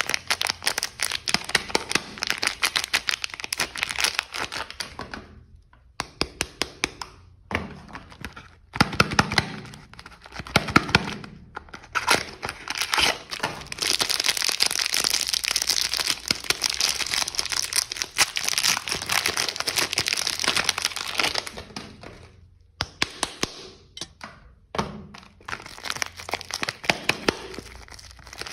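Soap wrappers crinkling, crackling and tearing as bars of soap are unwrapped by hand, in several bouts of dense crackling with short pauses between.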